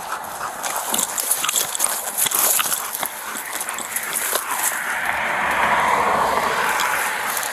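Leaves and branches rustling and scraping as someone pushes through dense undergrowth, with scattered snaps and crackles of twigs. The rustling grows louder and fuller in the second half.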